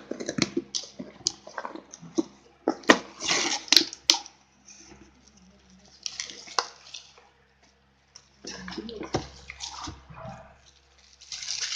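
Cardboard packaging and plastic bubble wrap rustling and crinkling as they are handled by hand, in irregular bursts with short clicks and scrapes, and a brief lull about eight seconds in.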